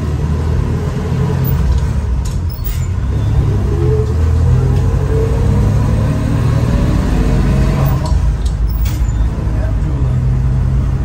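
The original 305 V6 of a 1962 GMC panel truck running under way, heard from inside the cab, its note rising as it pulls about three to five seconds in. A couple of brief clicks sound over the engine, once early and once near the end.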